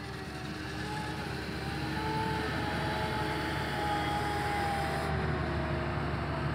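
Snow groomer's diesel engine running steadily under load, a low rumble with a whine that wavers slightly in pitch.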